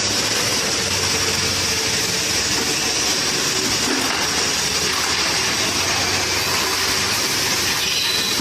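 Automatic wire hanger making machine running: a steady, even mechanical noise with a low hum underneath.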